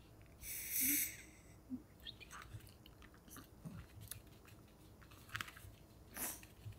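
A small dog crunching and chewing pieces of raw cucumber, a run of short wet crunches and clicks, with a short loud hissing rush about a second in.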